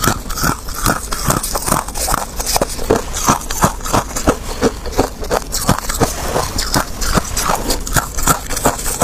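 A person biting and chewing frozen sticks and freezer frost: quick, irregular crunches, several a second.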